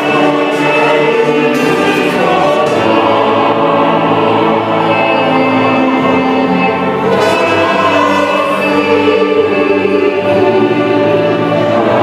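Church choir of mixed men's and women's voices singing a hymn together, with long held notes.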